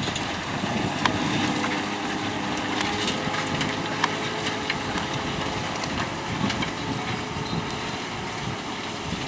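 Tractor engine running steadily as it pulls a plough through stony ground, with scattered sharp clicks over the steady hum.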